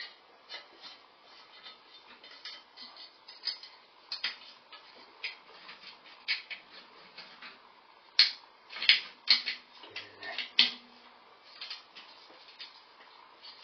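Irregular clicks, taps and light rattles of a sheet-metal exhaust-fan bracket and a plastic wire connector being handled and fitted, loudest and most frequent about eight to eleven seconds in.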